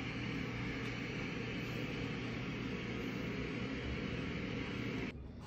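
Steady droning hum with an even hiss. It drops away suddenly to a quieter background near the end.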